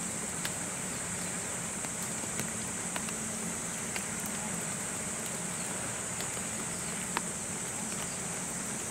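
Steady, high-pitched drone of insects, with a constant low hum underneath and a few scattered light ticks.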